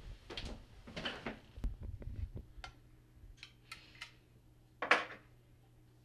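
Kitchen handling noises: a run of soft knocks and rustles for the first two seconds or so, then a few light clicks and one louder knock about five seconds in, over a faint steady hum.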